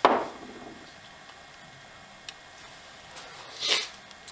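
Aerosol can of lubricant sprayed onto a new chainsaw fuel line in short bursts: a loud burst right at the start that fades within half a second, and a brief hiss about three and a half seconds in.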